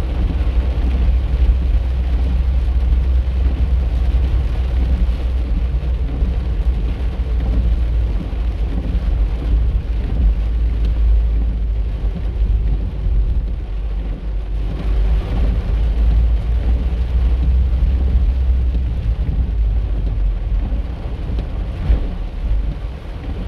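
Steady low rumble of a car driving, heard from inside the cabin, mixed with the hiss of rain and tyres on a wet road.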